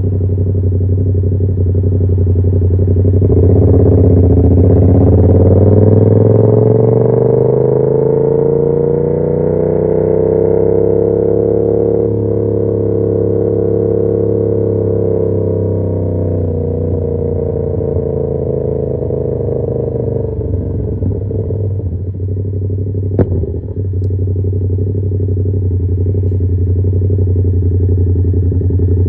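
2021 Yamaha MT-07's 689 cc parallel-twin engine through an SC Project CR-T carbon exhaust. It idles at first, then its pitch rises slowly and smoothly for about eight seconds and falls back over the next eight to a steady idle. Late on there is a single sharp click.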